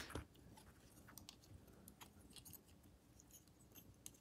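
Near silence, with faint light clicks and ticks of a plastic Transformers action figure being handled. The clearest clicks come right at the start.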